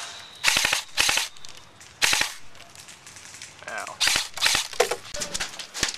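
Airsoft guns firing in short bursts of rapid shots, about six bursts with uneven gaps between them.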